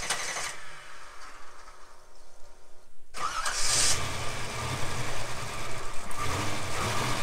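Twin-turbocharged V8 of a 1957 Chevrolet Bel Air starting: after about three seconds of quiet it fires suddenly and settles into a steady idle, its exhaust leak freshly repaired.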